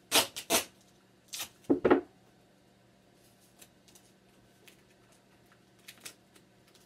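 Grey duct tape pulled off the roll in a few quick rips in the first two seconds, then faint crinkling and pressing as the tape is smoothed down.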